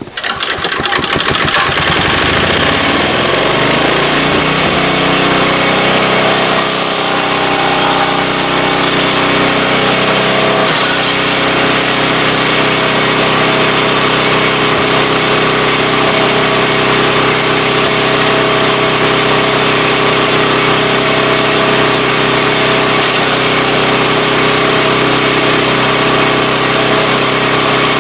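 Small single-cylinder 3.5 HP Tecumseh engine on a wood chipper starting and running at speed. It comes in abruptly, its pitch climbs for the first several seconds as it winds up, then it holds a steady note. It runs smoothly with its carburettor main jet freshly adjusted.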